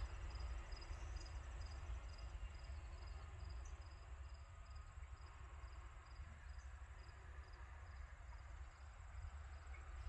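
Cricket chirping faintly and steadily, a little over two high chirps a second, over a low rumble.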